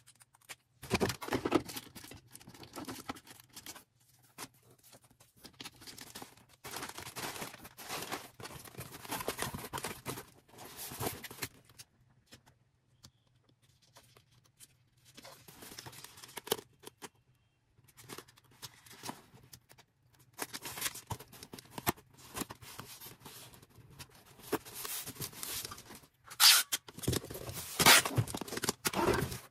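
Packaging being handled while an order is packed: rustling, scraping and tearing in irregular bursts with short pauses. The two sharpest sounds come near the end.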